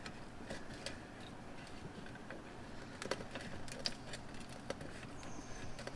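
Faint, scattered light clicks and taps of sheet metal being shifted by hand as a cut-out piece of rusty fender is positioned on a new steel patch panel, over a low steady hum.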